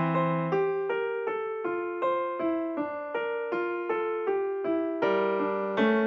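Background music: a piano melody of short notes, several a second.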